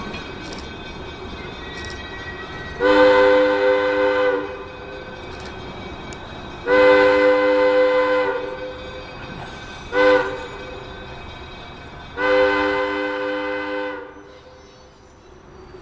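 GE 80-ton centercab diesel locomotive sounding its multi-note horn in four blasts, long, long, short, long: the standard grade-crossing signal. Its engine runs underneath between the blasts.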